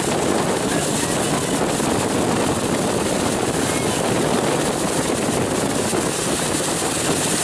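A 2002 Malibu ski boat with its LS1 V8 engine under way, towing a skier: a steady mix of engine drone and rushing water and spray.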